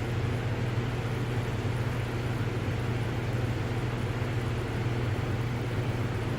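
Steady low machine hum: one constant deep tone with fainter overtones, under an even hiss that doesn't change.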